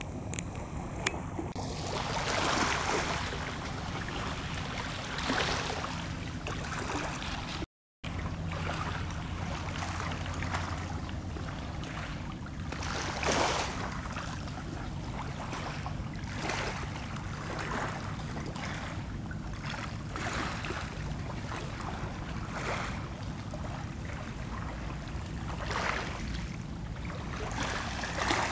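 Small lake waves lapping at the shore: a steady wash with a soft swell every few seconds. The sound cuts out briefly about eight seconds in.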